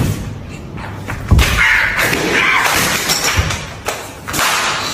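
Rubber screaming-chicken toys thudding against a kitchen countertop, three thuds with the loudest about a second in, and a long harsh squawk from a squeezed rubber chicken between them.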